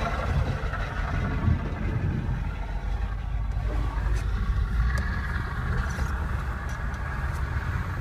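Steady low rumble of vehicle engines heard from inside a car's cabin as it moves past a large wheel loader.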